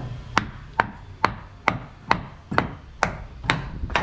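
A hand tool striking wood in a steady rhythm, about two blows a second, nine in all.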